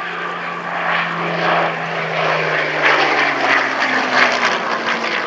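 Rolls-Royce Merlin V12 engine of a Hawker Hurricane IIC flying past, a steady propeller-driven drone whose pitch falls gradually as it goes by, loudest in the second half.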